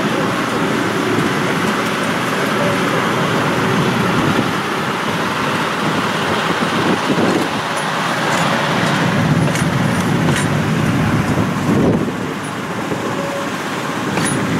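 Vintage CTA stainless-steel rapid-transit cars rolling slowly past on curved track: a steady, loud rumble of wheels on rail and running gear, easing off briefly about three-quarters of the way through.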